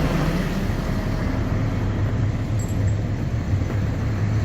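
Steady low hum of a running motor vehicle engine over street traffic noise.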